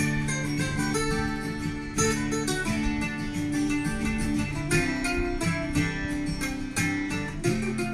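Background music: a plucked acoustic guitar tune with strummed chords.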